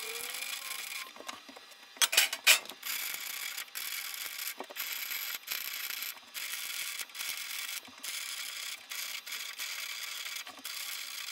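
Electric arc welding on a steel tube frame: a steady crackling sizzle of the arc, broken by short pauses as the arc stops and restarts. A few loud sharp knocks about two seconds in.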